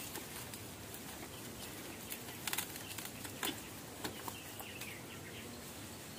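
Thin wild bamboo shoots being snapped off by hand among dry bamboo stems, with crackling and rustling. There is a quick cluster of sharp snaps about two seconds in and single snaps a little later.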